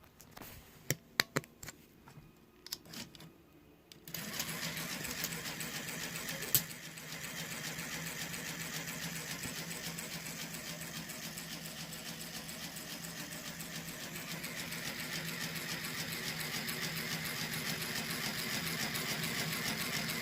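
Lego electric motor driving a K'nex marble elevator: a few clicks, then about four seconds in the motor starts and runs with a steady whir and fast even plastic chatter, stopping suddenly just before the end.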